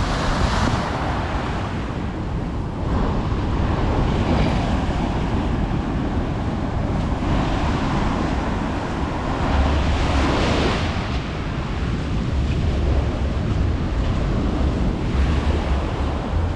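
Sea waves breaking and washing up on the shore, the noise swelling and easing several times. Wind buffets the microphone with low rumbles in the second half.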